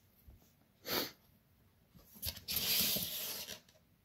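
Cardboard packaging rubbing and scraping as the box is opened: a short scrape about a second in, then a longer rasping rub a little past two seconds in.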